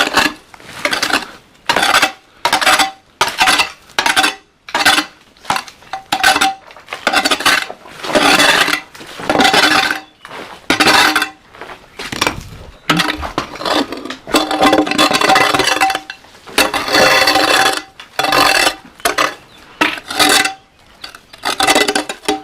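Repeated scrapes and clinks of a metal digging tool working into stony soil, about one stroke a second, many strokes leaving a short metallic ring.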